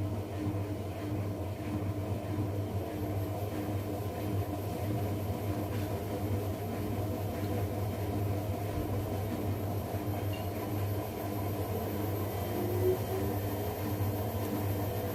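Two washing machines, an LG Centum-system front-loader and a Zanussi, running through their cycle with a steady motor hum and a pulsing tone. Late on, a short rising tone is heard.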